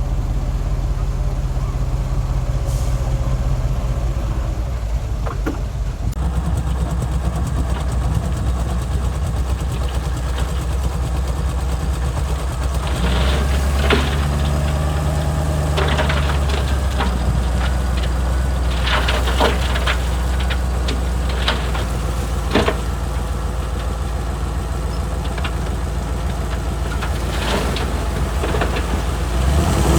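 Heavy diesel earthmoving machinery running steadily, with scattered sharp knocks and clanks through the middle of the stretch.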